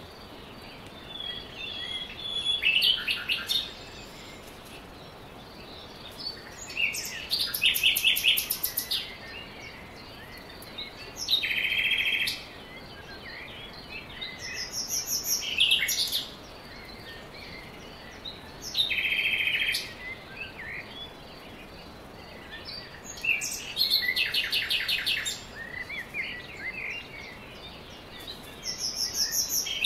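Wild songbirds singing: short, bright, rapid trilled phrases every few seconds, over a steady faint hiss.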